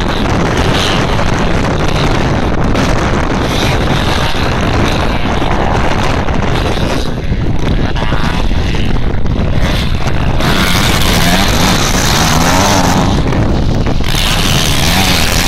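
Motocross bike engines revving up and down on a dirt track, with wind buffeting the microphone. The engines grow louder from about ten seconds in, revving hardest as a bike comes close.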